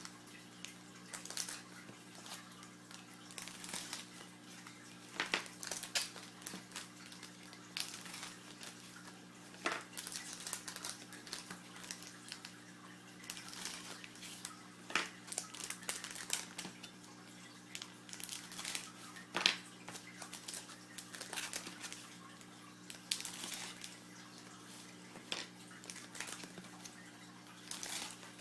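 Packs of 2007 Playoff Contenders football cards being torn open and handled: irregular crinkling of wrappers and rustling, slapping cards, with a steady low hum underneath.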